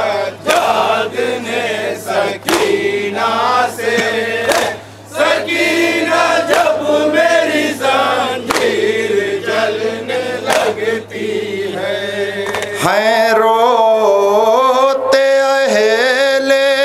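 Men chanting a Shia noha (lament) in chorus, with sharp chest-beating slaps (matam) landing in time about every two seconds. About thirteen seconds in, a single male reciter's voice comes to the front, singing the lament through a microphone.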